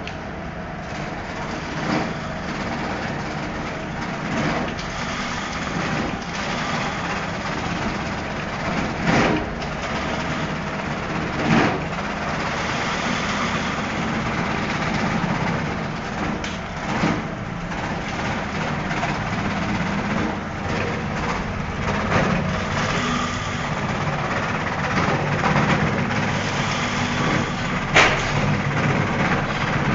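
Banana-stem chopping machine running steadily, with a sharp knock every few seconds.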